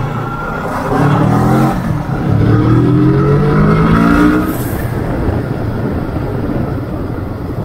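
Kawasaki ER-6n's 650 cc parallel-twin engine accelerating hard through the gears, rising in pitch in two pulls with a gear change about two seconds in. After that it settles into steady riding with wind rush.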